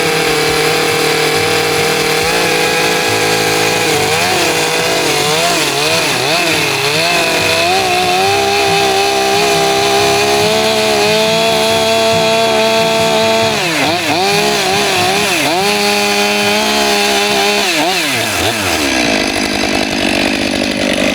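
Chainsaw cutting into a log, its engine pitch rising and falling over and over as it bites into the wood and revs free, with a couple of sharp dips. The engine note drops away near the end.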